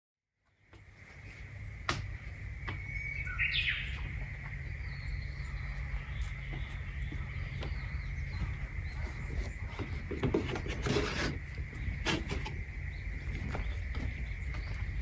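Outdoor garden ambience fading in: a steady low rumble with a single short rising bird chirp about three and a half seconds in, and scattered clicks and a brief rustle later.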